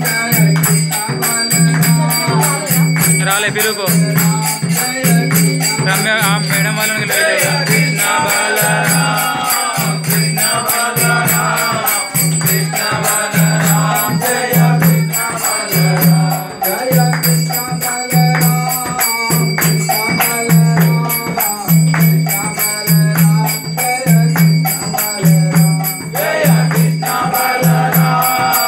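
Devotional kirtan: voices chanting and singing over a mridanga drum, with a deep regular beat about once a second and a steady metallic jingle above.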